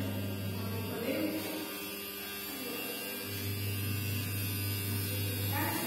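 A low steady electrical hum that cuts out about a second and a half in and comes back after about two seconds.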